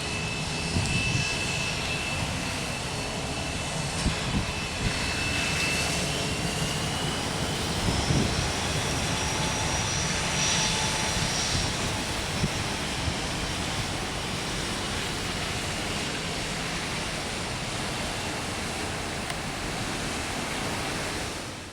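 Airliner jet engines running: a steady rushing noise with a high whine that glides upward in pitch a few seconds in.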